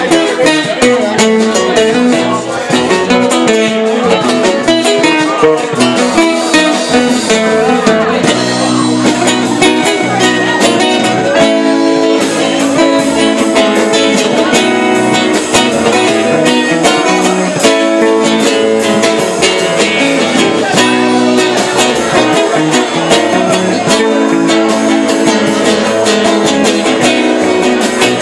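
Live band playing loud amplified music: guitar over a drum kit, with the drums striking steadily all through.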